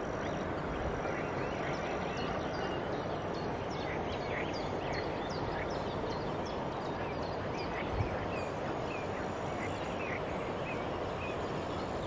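Dawn riverside ambience: many birds chirping over a steady background noise, with faint high steady buzzing. A single brief knock about eight seconds in.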